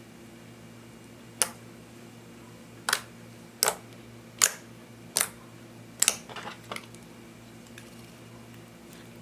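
Slime being pressed and squeezed by hand, giving six sharp popping clicks from trapped air, roughly a second apart, with a few softer pops after the last. A steady low hum lies underneath.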